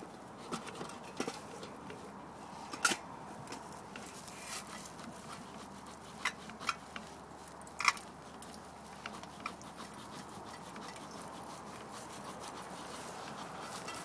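Scattered sharp clicks and knocks over a faint steady hiss. The loudest come about three seconds in and just before eight seconds.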